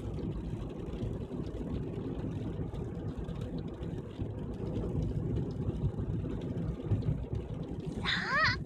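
Car running with a steady low engine and road rumble. A voice begins just before the end.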